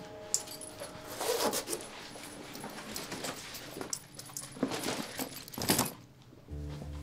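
Rustling and light clinking in several short bursts. Sustained music notes fade out about a second in, and a low music drone comes in near the end.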